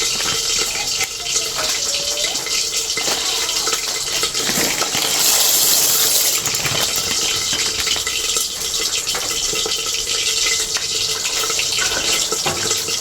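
Water running steadily with a continuous hiss that swells briefly about halfway through, over a faint steady hum.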